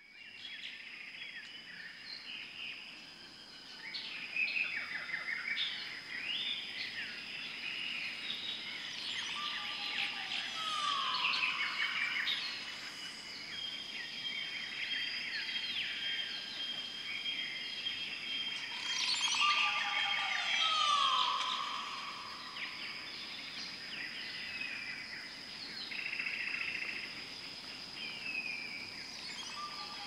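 Mixed wild birdsong: several birds chirping and whistling over one another above a steady thin high tone, with a lower call that comes back about every nine seconds.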